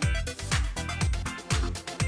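Electronic dance music with a steady kick-drum beat, about two beats a second.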